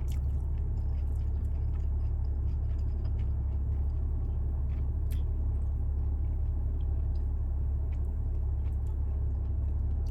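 A person chewing crunchy fried shrimp with the mouth, faint scattered crunches over a steady low hum.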